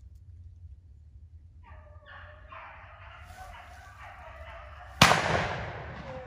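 A pack of beagles baying on a rabbit's trail, the calls overlapping, then a single loud gunshot about five seconds in, its echo dying away over a second.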